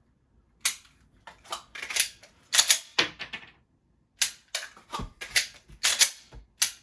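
Glock 41 pistol being worked through two dry-fire reloads: a rapid series of sharp plastic-and-metal clicks and clacks as the trigger is snapped, magazines are swapped and seated, and the slide is racked, in two clusters about a second apart.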